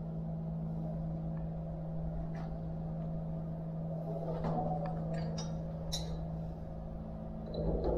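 Isuzu Forward truck's diesel engine running at a steady idle, an even hum, with a few light metallic clicks from tools on the engine.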